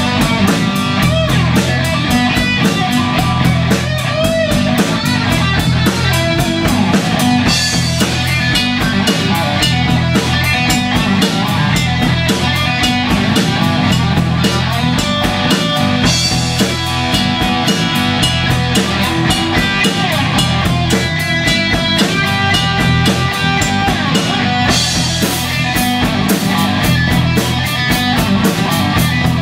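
Live rock band playing an instrumental stretch: electric guitar and bass guitar over a drum kit, with cymbals struck steadily.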